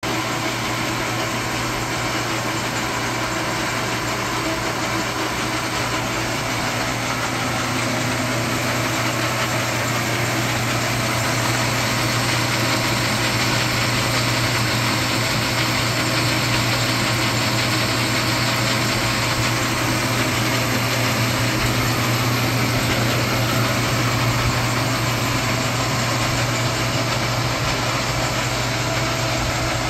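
1918 Mulliner-Enlund metal lathe running under power with its chuck spinning, giving a steady mechanical whir over a constant low hum. It grows slightly louder about ten seconds in.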